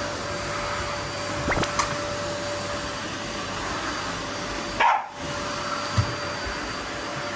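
Vacuum cleaner running steadily with a constant motor whine. A dog barks briefly at it, once or twice about a second and a half in and again about five seconds in.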